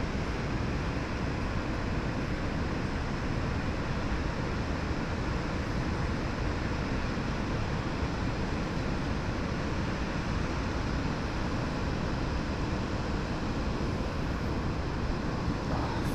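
Steady rushing background noise with no distinct events, heaviest in the low end.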